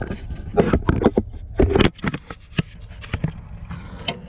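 Irregular sharp clicks and knocks with scraping, busiest in the first two seconds, over a steady low rumble.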